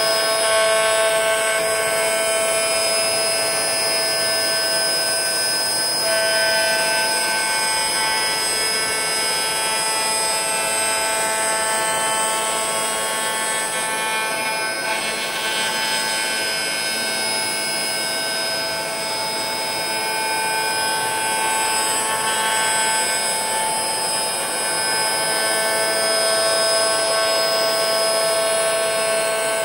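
High-speed electric milling spindle on an industrial robot arm running while its end mill cuts a rough pass through a block of polymer clay: a steady whine made of several high tones over a rushing cutting noise, with some tones fading and coming back as the cut moves along.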